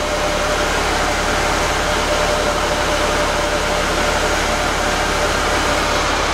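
Steady, even rushing noise with a low hum beneath it, unchanging throughout.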